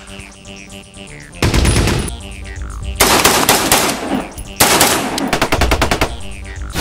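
Bursts of automatic machine-gun fire: a short burst about a second and a half in, then longer rapid bursts through the middle and latter part, over background music.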